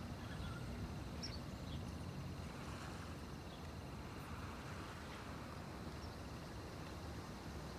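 Faint outdoor city ambience by a lake: a steady low rumble of distant traffic with a few short, faint bird chirps.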